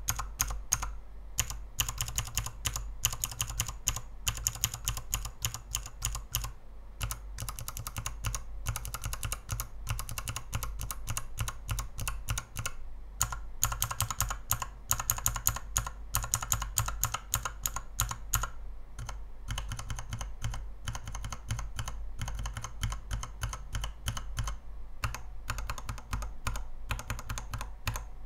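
Mechanical keyboard switches on a KBDfans 72-switch tester, topped with dye-sub XDA keycaps on an acrylic base, being pressed in fast runs of clicky, clacking keystrokes, with a few brief pauses.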